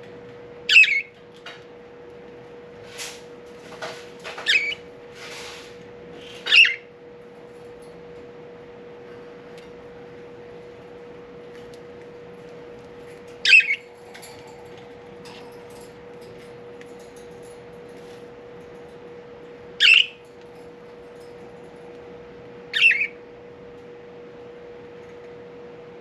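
Pet budgerigars calling: six loud, short, sharp calls at irregular intervals of a few seconds, with a few fainter calls among the first three.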